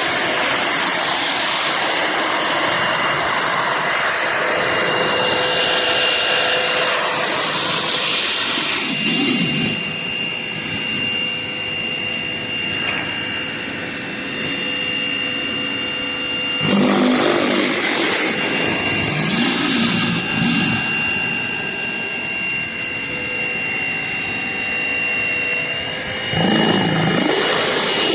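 Greenworks 1800 psi electric pressure washer running with an 11-inch rotary surface cleaner spraying on concrete: a steady hiss of water jets over a whining pump and motor. The hiss drops to a lower, duller level twice for several seconds.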